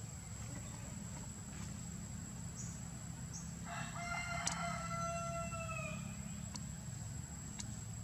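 A rooster crowing once: one long call of about two and a half seconds, starting a little under four seconds in, holding its pitch and dipping slightly at the end.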